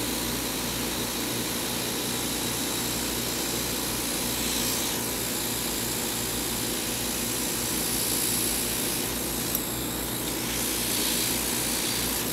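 Hot-air plastic welder blowing steadily as it melts co-polymer welding rod into a core shot in a ski base. The hiss swells briefly a few times.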